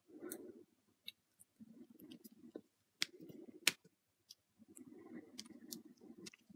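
Small plastic clicks and soft rubbing as fingers handle a plastic action figure and fit its lightsaber hilt to the belt clip; two sharper clicks about three seconds in.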